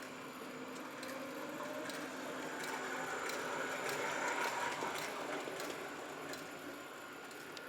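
Lenz O gauge Class 86 model locomotive running along the track: a steady whirr of motor and gears with scattered light clicks of the wheels on the rails, growing louder about halfway through and then easing off.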